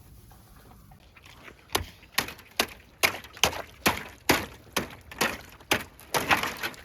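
Footsteps at a steady walking pace, about two a second, starting about a second and a half in and growing louder.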